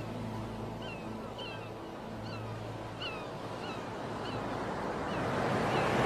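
A flock of seabirds giving short, high calls, each with a quick falling hook, about two or three a second and overlapping, over a hiss of surf and wind that swells toward the end.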